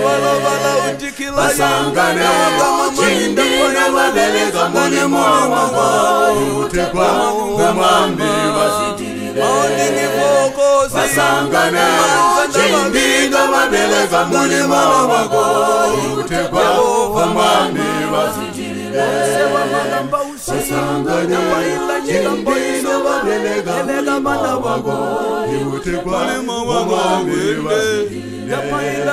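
A mixed choir of men and women singing a cappella in close harmony, with a low bass part under the higher voices.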